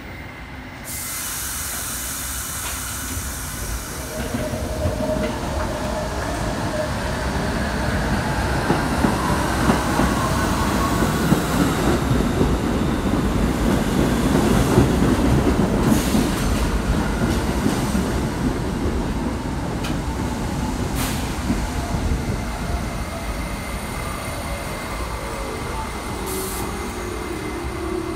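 New York City subway train of R68 cars running into the station alongside the platform, its wheels clattering with a few sharp clacks over rail joints and some wheel squeal. The sound builds to its loudest about halfway and then eases, with a whine falling in pitch near the end as the train slows.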